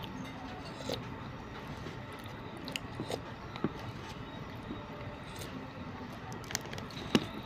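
Close-up chewing of food, with a plastic spoon clicking and scraping against a plastic food container; a few sharper clicks near the end.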